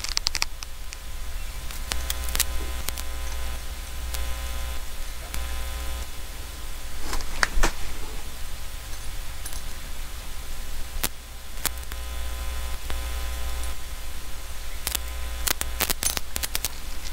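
Steady low electrical hum, with scattered sharp clicks and taps from hand soldering work on wires at a tube base. A cluster of clicks comes near the end.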